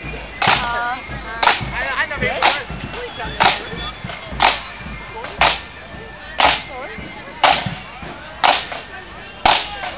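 Marching band's side drums struck together in a single sharp crack about once a second, ten evenly spaced beats keeping the marching step between tunes.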